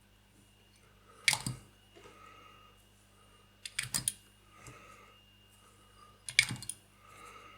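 Small plastic model parts and tools handled on a work table: three brief clusters of light clicks and taps, about a second in, around four seconds and around six and a half seconds.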